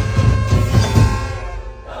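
A live band plays with heavy drum beats about four a second over sustained instrument tones. The beats stop about a second and a half in, leaving softer held tones.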